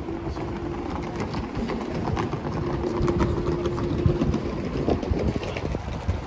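Hard wheels of rolling suitcases rattling over cobblestones, a dense clattering rumble that grows louder toward the middle, with a steady hum underneath.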